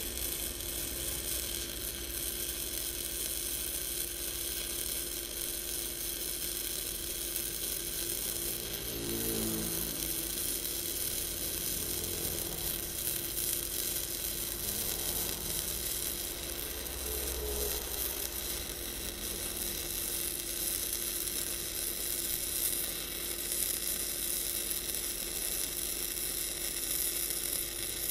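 MIG welding arc from a Lucky Star MIG-285L welder, running steadily as a bead is laid on 5–6 mm thick steel plate.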